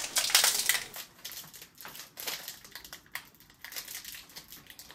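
Chocolate bar wrapper being crinkled and pulled at by hand as a child struggles to open it. The crackling is loudest in the first second, then continues as fainter, scattered crinkles.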